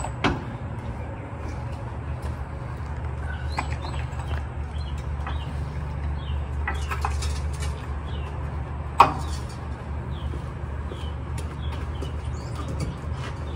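Small birds chirping over a steady low rumble, broken by a few sharp metal clanks and a short rattle from a floor jack and steel jack stand. The loudest clank comes about nine seconds in.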